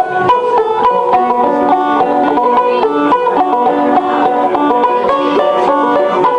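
Two banjos played together: an instrumental picked tune in quick, steady runs of plucked notes.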